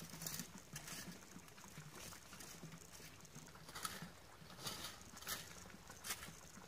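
Metal-tined leaf rake scraping and rustling through dead leaves and wet grass in a series of short strokes.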